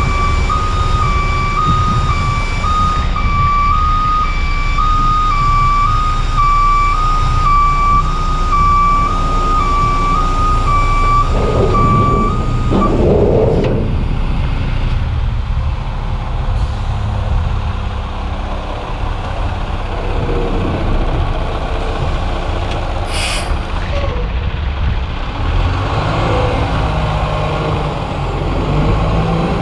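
Garbage truck's 330 hp Cummins ISL diesel running while a warning alarm beeps, alternating between two pitches, as the McNeilus body's tailgate is lowered; the beeping stops about 13 seconds in. About two-thirds through there is a short hiss of air brakes releasing, then the engine rises as the truck pulls away.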